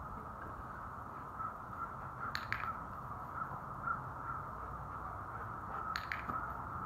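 Training clicker clicked twice, each time as a quick double click (press and release), over steady background noise; the second click comes as the dog steps onto the mat, marking the behaviour.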